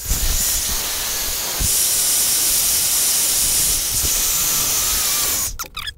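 Handheld hair dryer blowing, a loud steady rushing hiss. It grows louder nearly two seconds in, eases back about four seconds in, and cuts off about five and a half seconds in.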